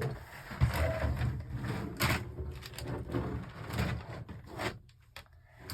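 Plastic Lego pieces being handled, with irregular clicks, knocks and rattles as bricks are picked up and pressed together.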